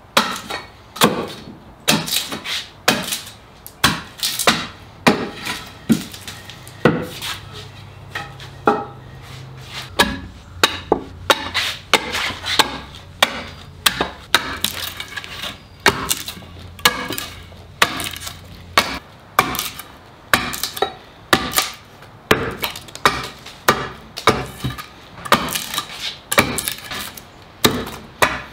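Hand axe chopping along the edge of a wooden barrel stave held on a stump chopping block, hewing the stave to shape: a steady run of sharp chopping strikes, about one to two a second, with wood splintering off.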